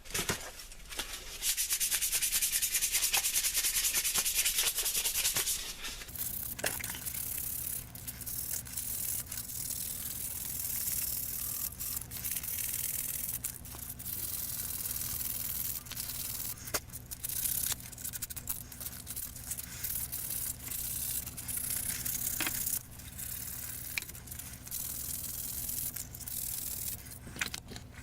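Sanding the wooden handles of a draw knife: a loud, fast rasping hiss for a few seconds. About six seconds in it gives way to a steady low hum with quieter rubbing and scattered clicks.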